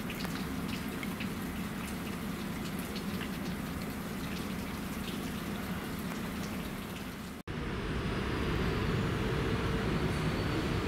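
Light rain and dripping water, scattered little ticks of drops over a steady low hum. About seven seconds in the sound cuts, and a louder, denser steady noise takes over and slowly grows.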